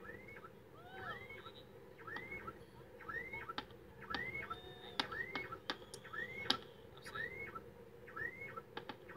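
Fireworks heard from a distance: scattered sharp pops and crackles, the loudest about five and six and a half seconds in, over a steady hum. Through it, a short rising-and-falling chirp repeats about every three-quarters of a second.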